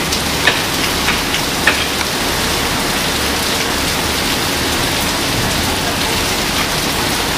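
Heavy rain falling steadily, a constant hiss of rain on the ground and surfaces around a covered porch, with a few sharp taps in the first two seconds.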